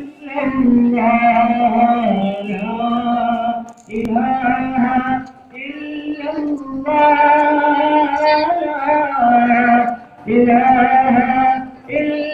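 A tarana sung by voices in long held phrases with short pauses between lines, loud.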